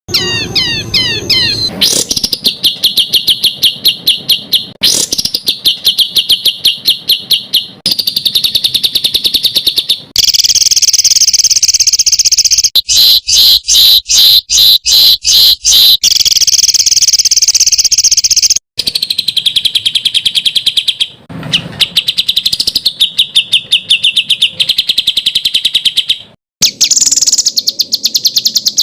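Songbird recordings spliced one after another, each a loud, fast run of harsh repeated notes, the rapid 'tembakan' phrases used as tutor audio for training competition songbirds. The phrase changes abruptly every few seconds, and one stretch in the middle is a very rapid stutter.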